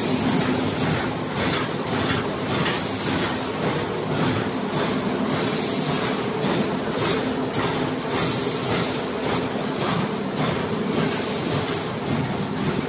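Thermoforming machine running in production, making PLA lids: a steady mechanical hum under a continuous busy clatter, with frequent short hisses.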